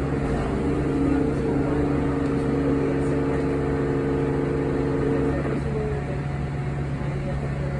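Cabin sound of a Yutong ZK6128BEVG (E12) battery-electric bus under way: a steady low hum over road rumble, with a set of steady higher tones from the drive that cut out about five seconds in.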